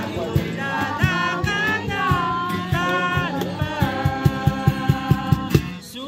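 Background music: a song with a singing voice over a steady drum beat.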